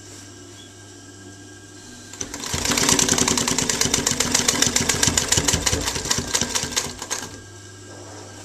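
Singer 331K4 industrial sewing machine stitching through cloth, a rapid, even clatter that starts about two seconds in and stops about two seconds before the end. Under it is the steady hum of the machine's running motor.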